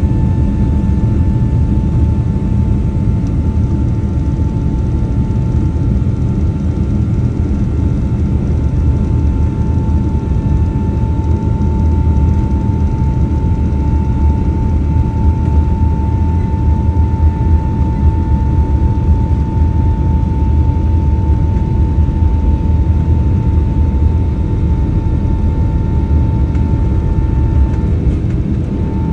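Airliner cabin noise in flight aboard a Boeing 777-200ER: a steady low rumble of airflow and engines, with a constant thin whining tone above it.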